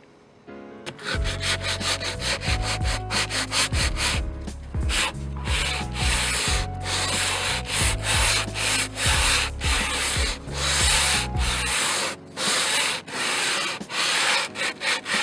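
Coarse 60-grit sandpaper rubbed by hand over weathered teak railing, starting about a second in with quick back-and-forth scratchy strokes, about two to three a second. A low rumble sits under the strokes until near the end.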